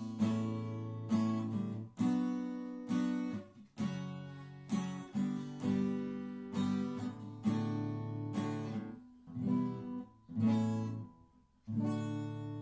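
Acoustic guitar strumming chords, about one a second and slowing, each ringing and fading. The last chord, a little before the end, is left to ring out as the close of the piece.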